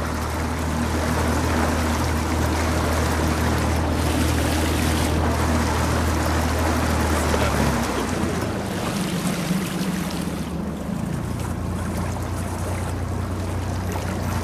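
Small outboard motor on an inflatable boat running at low speed as a steady hum. Its note changes about eight seconds in and again near eleven. Water and wind noise run under it.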